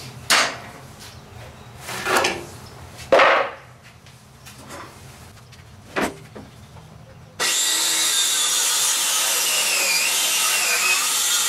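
Wooden panels knocking a few times as they are handled. From about seven seconds in, a power saw cuts through a wooden board with a loud, steady, high-pitched noise.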